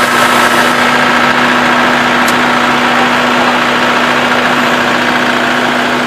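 Metal World combine harvester running steadily close by while it unloads grain through its spout: a loud, even mechanical drone of engine and threshing machinery with a constant hum.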